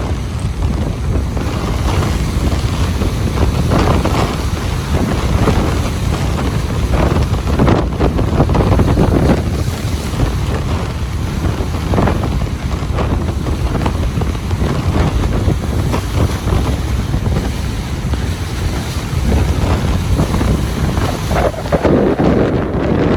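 Ocean surf washing onto a beach, with strong wind buffeting the microphone and giving a heavy low rumble.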